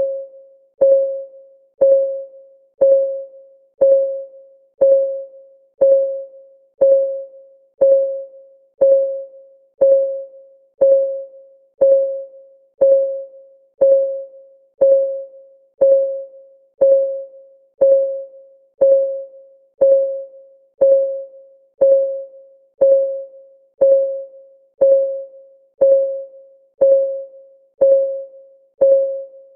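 Countdown timer's clock ticking sound: one short, mid-pitched tick each second, each ringing briefly and fading fast, in a perfectly even rhythm.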